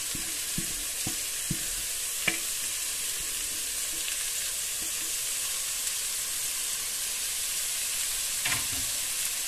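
Vegetables frying in oil in a pot, a steady sizzle, as diced radish is tipped in by hand from a plate. There are a few light taps in the first couple of seconds and a soft knock near the end.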